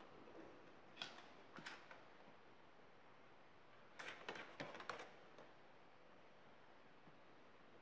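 Faint clicking of dogs' claws on wooden floorboards: a couple of clicks about a second in, then a quick run of clicks about four to five seconds in, otherwise near silence.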